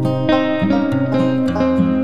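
Background music played on a plucked acoustic guitar, notes picked in a steady pattern.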